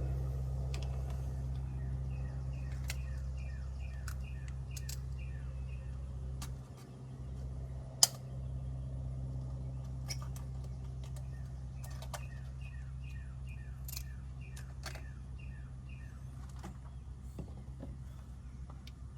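A bird chirping in two runs of quick repeated notes, about three or four a second, over a steady low hum, with scattered small clicks and one sharp click about eight seconds in.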